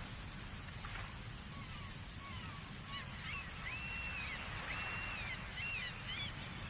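Seagulls calling repeatedly from about two seconds in: a few drawn-out arched calls, then quicker short ones, over a steady low rumble.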